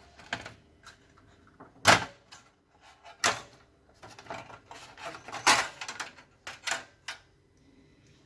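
Scattered sharp clicks and knocks with light rustling in between: hard plastic and metal parts of an opened PlayStation 4 console being handled and set down on a workbench. The loudest knock comes about two seconds in.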